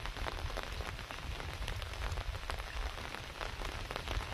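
Rain falling steadily, a dense patter of many separate drops hitting.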